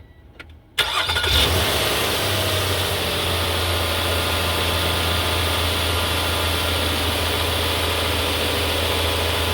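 Nissan Maxima 3.5L V6 engine starting about a second in, then idling steadily: its first start after a new serpentine belt was fitted.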